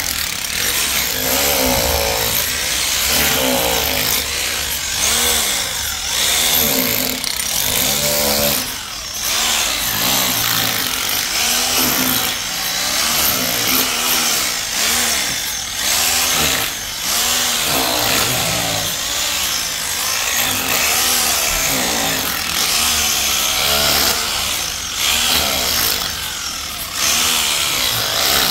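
Large sawmill saw cutting lengthwise through a walnut log, a loud, continuous whine whose pitch keeps dipping and recovering as the blade works through the wood.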